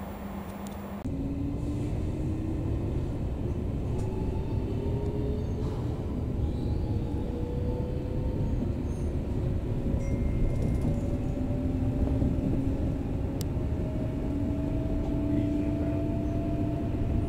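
Inside an electric train pulling away from a station, heard through the carriage: a low wheel-on-rail rumble with the traction motors' whine rising slowly and steadily in pitch as the train gathers speed. It begins about a second in, with a sudden cut from a steady hum.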